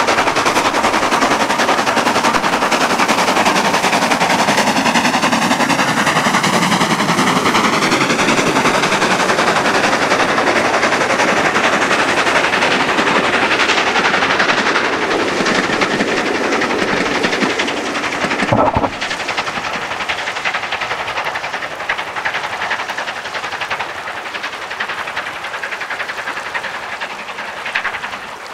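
LNER K1 class 2-6-0 steam locomotive working hard, its exhaust beats coming thick and fast over the rumble of the train. About two-thirds of the way through a brief thump is heard, and the sound then drops as the train draws away, with a rushing stream close by.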